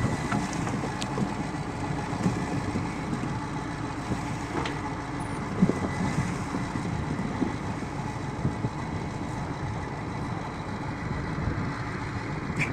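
Heavy vehicle's engine running steadily as a continuous low rumble, with a few faint clicks and knocks.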